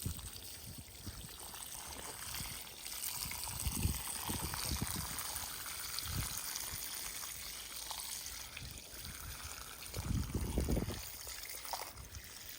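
Garden hose running, water pouring and trickling onto the ground, with a few dull low bumps, the loudest about ten seconds in.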